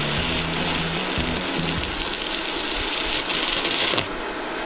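Stick arc welding on steel plate with an inverter DC arc welder: the arc crackles steadily, then cuts off abruptly about four seconds in as the arc is broken.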